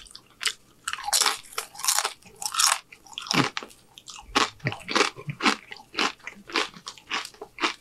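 Close-miked crunching and chewing of a fried tortilla chip, a crisp crunch every half second or so.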